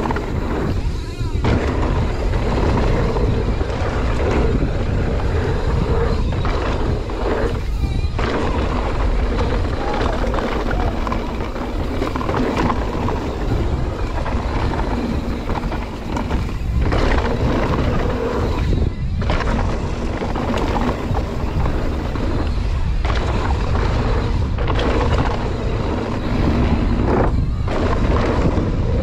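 Background music with a steady pitched bed, briefly dropping out several times.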